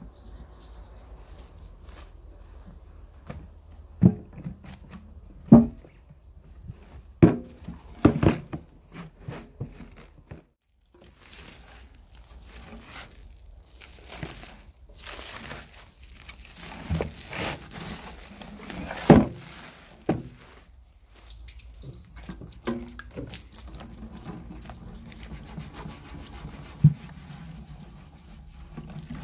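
Sharp, scattered knocks of a sheet-metal tank being handled in a plastic tray as a brush works over its lid. From about ten seconds in, plastic cling film crinkles as it is peeled off the tank, with more knocks.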